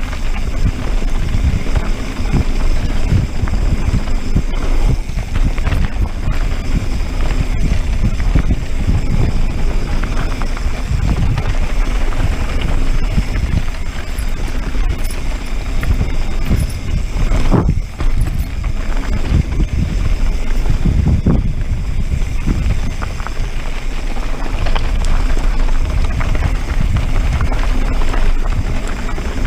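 Wind rushing over a moving action camera's microphone on a mountain bike descent, with knobby tyres crunching over loose stones and the bike rattling over bumps in short knocks.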